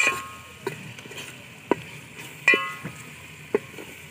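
A perforated metal spoon stirring masala and tomatoes frying in oil in a metal pot, with a low sizzle underneath. The spoon knocks against the pot several times, ringing with a metallic clang at the start and again about halfway through.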